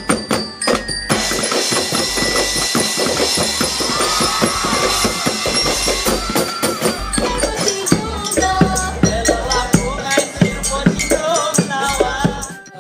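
Percussion music with a fast, busy drum beat of struck drums and percussion, some melody over it.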